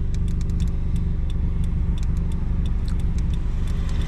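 Subaru engine running at a steady, unchanging note, now on fresh spark plugs that cured its misfire. A light, irregular ticking runs over it.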